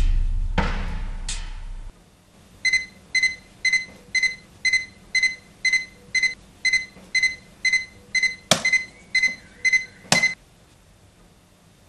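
Radio-controlled digital alarm clock going off: a high electronic beep in short pulses about twice a second. A click comes near the end, and the beeping cuts off as the alarm is switched off.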